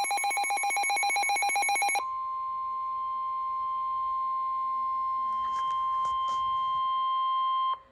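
An electronic weather-alert signal: a rapidly pulsing beep for about two seconds, then one steady tone near 1 kHz that holds for several seconds and cuts off suddenly near the end. It is the NOAA Weather Radio warning alarm tone announcing a severe thunderstorm warning.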